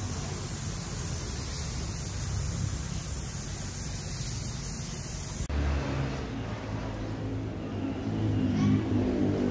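Gravity-feed air spray gun hissing steadily as it sprays paint, over a low rumble. About five and a half seconds in the hiss cuts off abruptly and a motor's low running hum takes over, growing louder near the end.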